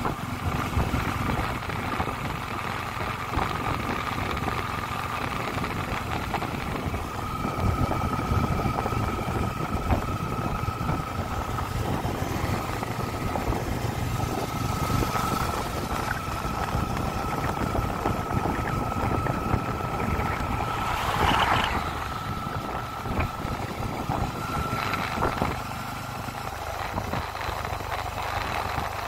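Bajaj Pulsar F250's single-cylinder engine running steadily while cruising in fifth gear at about 45 km/h, heard from the saddle with road and wind noise. A steady high whine runs through it, and about two-thirds of the way in there is a brief louder rush of noise.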